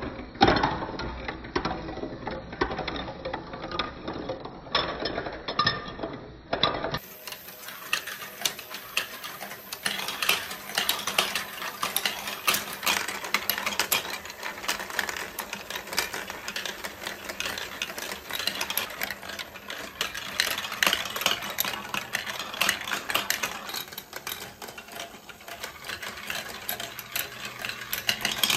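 Plastic balls rolling and clattering along a plastic block marble-run track, a dense run of small clicks, over the steady running of the motorized spiral elevator that carries the balls back up.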